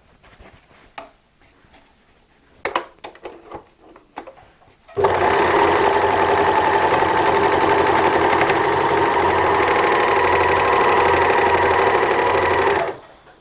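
W6 N454D overlock (serger) starting up about five seconds in, running at a steady speed for about eight seconds while stitching a decorative edge on fabric, then stopping abruptly. Before it starts there are a few soft clicks of the fabric being handled.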